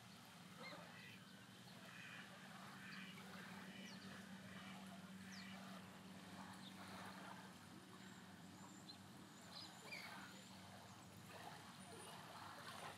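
Near silence: faint outdoor ambience with a low steady hum and scattered faint chirps.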